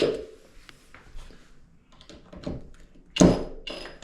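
A power drill stops right at the start, then light knocks and taps of the drill and the shower door's aluminum frame being handled, with one loud, sharp thunk a little after three seconds in and a smaller knock just after.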